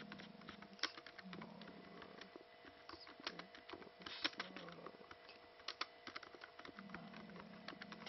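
Typing on a ThinkPad-style laptop keyboard: a run of irregular soft key clicks, with a few sharper key strikes standing out about a second in, at about four seconds and at about six seconds.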